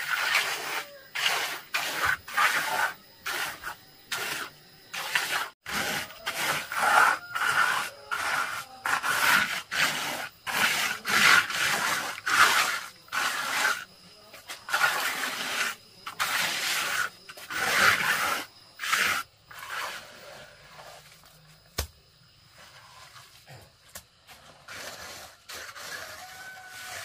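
Scraping strokes of a hand tool on a hard, gritty surface, repeated about one or two times a second and then dying away about twenty seconds in.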